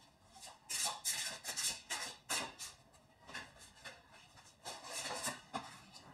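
Deck of tarot cards handled and shuffled by hand: a string of short papery rustles and slides, with a card laid on the table near the end.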